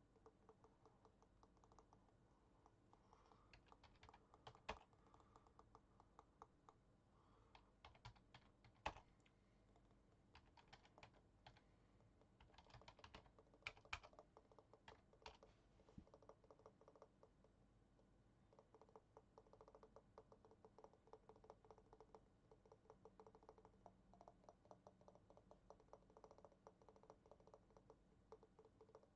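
Keys of a computer keyboard being pressed: faint clicking in irregular runs and clusters, with a few sharper single key strikes.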